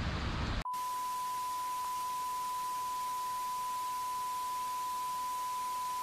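Outdoor background noise cuts off abruptly under a second in and is replaced by a steady pure tone at about 1 kHz, a sine test tone, over faint hiss.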